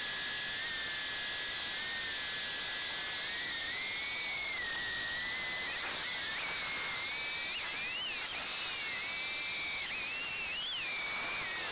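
Ducted quadcopter's motors and propellers whining over a steady hiss. The pitch wavers and surges up briefly several times in the second half as the throttle is worked through flips and rolls.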